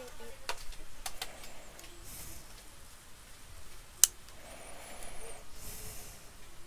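Small clicks and taps from tools and parts being handled during a tablet repair, with one sharp click about four seconds in and two short hisses.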